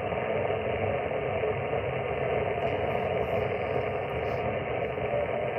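Ham radio transceiver on the 10-metre band in upper sideband, with no station coming through: a steady hiss of band noise from its speaker. The band is really crappy.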